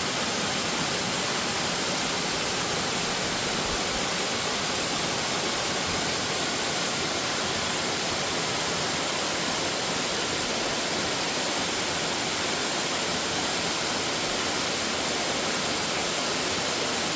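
Waterfall pouring: a steady, unbroken rush of falling water, a dense hiss with no change in level.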